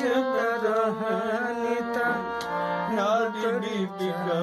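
Harmonium playing a melody over held reed tones, with a voice singing along in gliding, ornamented lines.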